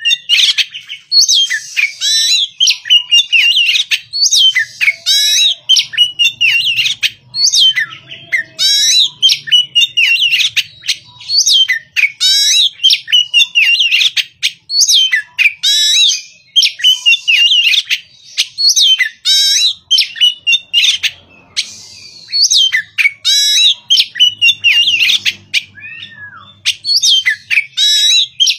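Oriental magpie-robin (kacer) singing loudly: a fast, varied stream of sweet whistles and scratchy, chattering notes, delivered in bursts of a second or two with brief pauses between them.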